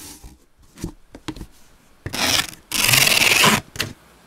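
Scratchy rubbing strokes: a few soft taps, then a rasping stroke about two seconds in, a louder, longer one just under a second later, and a short one near the end.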